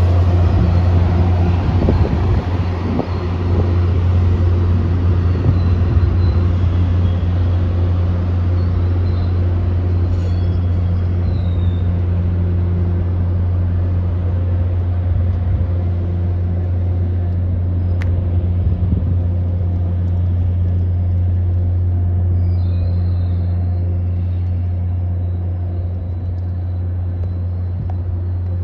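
Steady low diesel drone from an MBTA commuter rail locomotive as the train pulls out, easing off slowly as it moves away. There is one sharp click about eighteen seconds in.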